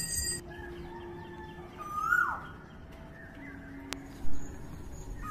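Birds calling outdoors: a short call that rises briefly and then sweeps down, heard twice, with low steady hooting notes in between. A sharp click and a brief bump come about four seconds in.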